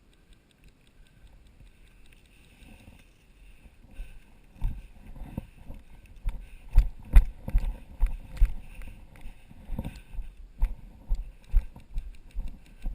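Footsteps of a person walking over rough ground, heard as dull thumps with gear jostling on a body-worn action camera. They start a few seconds in and settle at about two steps a second.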